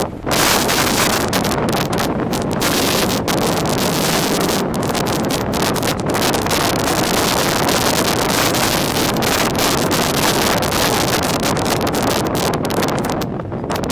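Steady rushing of wind on the microphone, loud throughout, with no pitched tones standing out.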